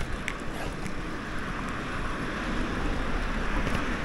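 Steady rush of wind over the microphone, mixed with road and tyre noise from an e-bike being ridden.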